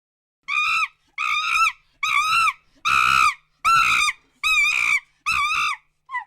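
Common chimpanzee screaming: a run of seven loud, high-pitched screams, each about half a second long, in quick succession, then a short call near the end.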